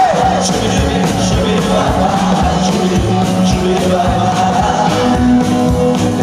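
Rockabilly band playing live: upright double bass, electric guitar, drums and keyboard, with a steady driving beat.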